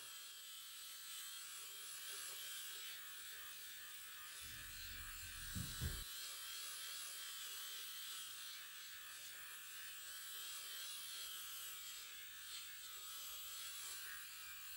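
Faint steady buzz of a Foreo sonic silicone facial cleansing brush working over a lathered face, with a short low rumble about five seconds in.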